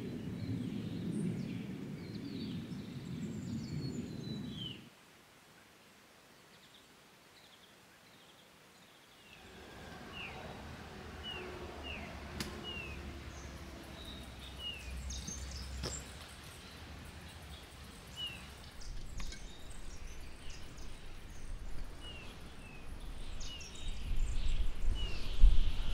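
Small birds chirping: short, quick, falling chip notes repeated every second or so, over a low rumble that swells and turns gusty near the end. The first few seconds hold a low, even hazy sound, and a few seconds of near silence follow before the birds come in.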